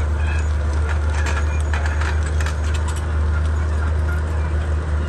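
Komatsu D31P crawler bulldozer's diesel engine running with a steady low drone, with a run of short metallic clicks and clatter between about one and three seconds in.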